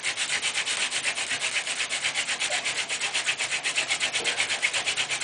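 A Paulownia hand-drill spindle grinding against a Paulownia hearth board as it is twisted under downward pressure, a dry wood-on-wood scraping that pulses evenly about ten times a second. This is the spindle being mated, seating its tip into the gouged socket before the friction-fire attempt.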